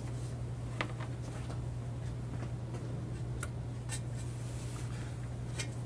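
Light ticks, clicks and rustles of polyester screen-printing mesh being spread and smoothed by hand over a screen frame and its clamps, over a steady low hum.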